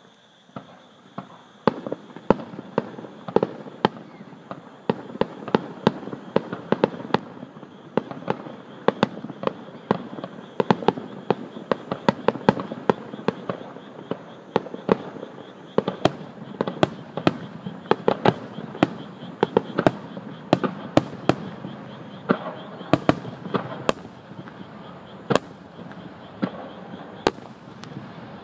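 Aerial firework shells bursting in a fast, continuous barrage, several sharp bangs a second over a crackling rumble, recorded on a smartphone.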